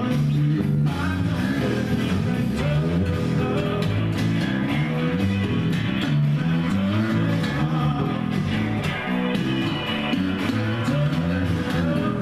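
A rock song playing, with a voice singing over guitar and a steady beat.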